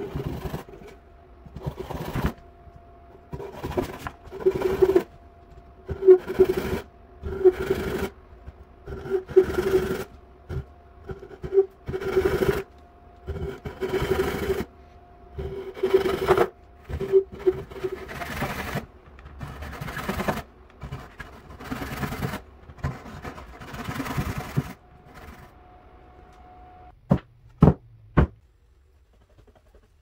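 Hand saw cutting wood in steady back-and-forth strokes, a little more than one a second, trimming pieces flush. The sawing stops, and a few sharp knocks follow near the end.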